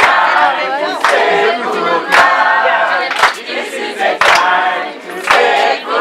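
A group of voices singing together, with a sharp beat about once a second.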